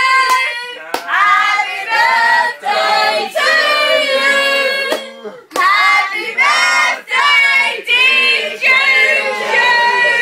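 A group of people singing loudly together without accompaniment, several voices overlapping on long held notes, with a few hand claps.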